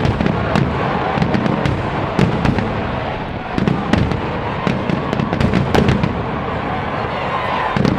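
Fireworks display: a rapid run of deep booms from shells bursting overhead, mixed with sharp cracks and crackles, over a steady background din.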